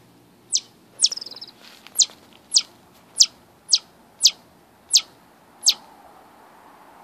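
A chipmunk giving its alarm call: a loud, sharp, high chip repeated about every half second, nine in all, with a short rapid trill after the second chip.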